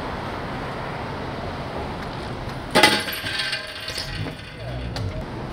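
A single sharp metallic clank from a BMX bike about three seconds in, ringing briefly, followed by a few lighter clinks.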